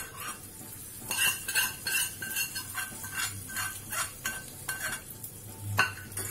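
Steel spoon scraping and clinking against a small stainless-steel tempering pan, emptying its oily tempering into a bowl of chutney: a run of short metal scrapes about two to three a second, with a faint ring from the pan.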